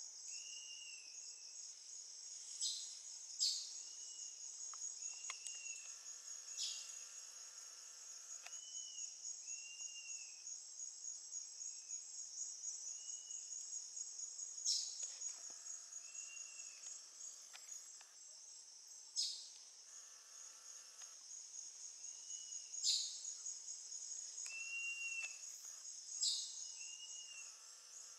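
Steady, fast-pulsed high trill of insects. Over it run repeated short arching whistled notes and a few sharp clicks.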